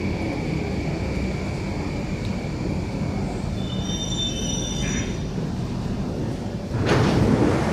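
Singapore MRT train coming to a stop at an underground platform, with a steady low rumble and a high, steady wheel-and-brake squeal that fades out about three seconds in. Brief higher squeals follow, and near the end comes a sudden louder rush of noise.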